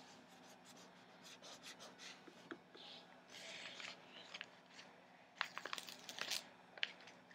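Paper being handled by hand: soft rustling, then a quick run of small crinkling crackles about two-thirds of the way through and one more tick shortly after.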